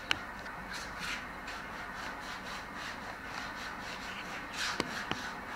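Pedicure foot file rubbing back and forth on the sole of a foot in quick repeated strokes. A sharp click just after the start and two more near the end.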